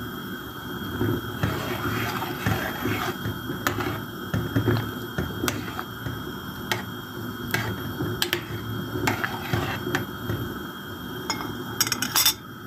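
Noodles cooking in mushroom broth in a metal pot, the broth bubbling steadily while a metal spoon stirs and clicks against the pot, with a quick run of clicks near the end.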